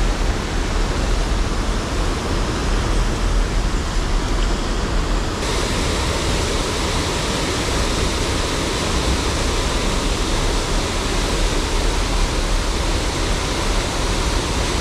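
A nearby waterfall pouring over rock ledges into the pool, a steady rushing hiss with a deep rumble underneath. About five seconds in it suddenly turns brighter and hissier.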